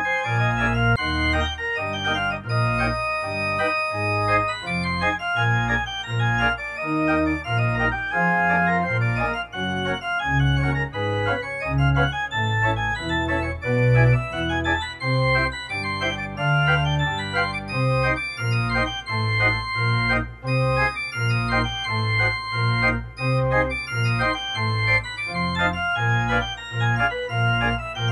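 Organ music, with sustained chords over a bass line that moves step by step.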